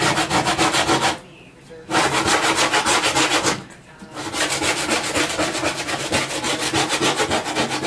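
Rapid back-and-forth scraping on oven door glass coated in wet baking powder paste, working off baked-on grime. The strokes stop briefly twice, about a second in and again near four seconds.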